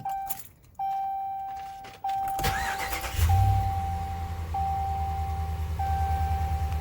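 Pickup truck dashboard warning chime sounding over and over, each tone about a second long. About two and a half seconds in the engine cranks and catches, then settles into a steady idle under the chime.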